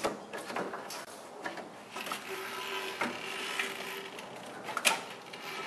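Old plastic-tanked radiator being worked up and out of its mounts: irregular plastic scraping and rubbing against the radiator support, with scattered knocks and one sharp knock near the end.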